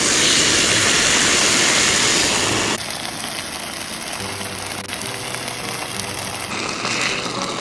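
Marinated beef kalbi sizzling loudly in a hot frying pan just after the slices go in. About three seconds in the sound cuts abruptly to a quieter, steady sizzle.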